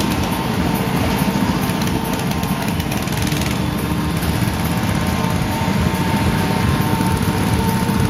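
Go-kart engines running steadily as several karts drive around the track, heard close up from a moving kart, with a thin steady tone above the engine noise.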